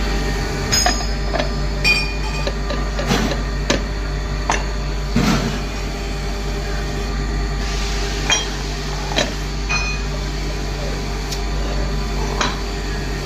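Metal parts clinking and knocking, with irregular hammer-like taps, some ringing briefly, over a steady hum.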